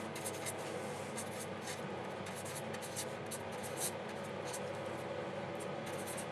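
Writing: a run of quick, uneven, scratchy pen strokes over a steady background hum.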